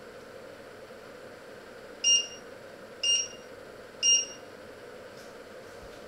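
Touch-control beeps from a glass-ceramic cooktop as its buttons are pressed: three short, high beeps about a second apart, over a steady hiss.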